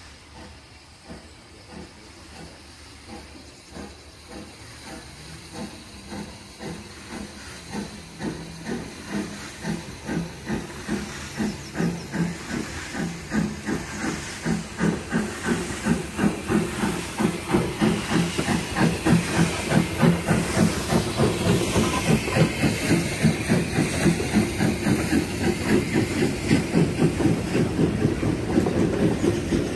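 Steam tank locomotive working a passenger train in, its exhaust chuffing in even beats at about two to three a second over a steam hiss, growing steadily louder as it draws near. Near the end the coaches roll past.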